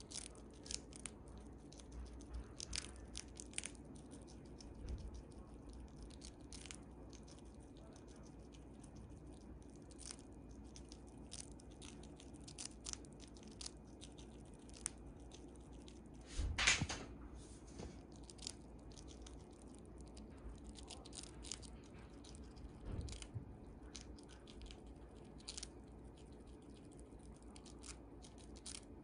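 Siberian chipmunk crunching a dried potato vegetable chip held in its paws: a scatter of sharp, crisp bites and cracks at an uneven pace, with one louder crackle about halfway through.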